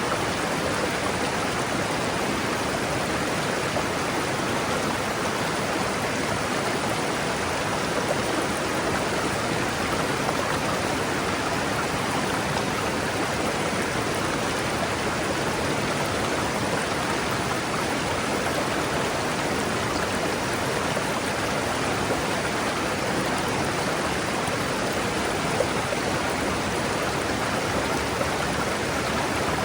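River water rushing steadily: an even, unbroken flow.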